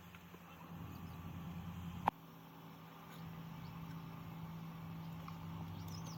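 A steady low mechanical hum, with one sharp click about two seconds in, after which the hum goes on at a different pitch.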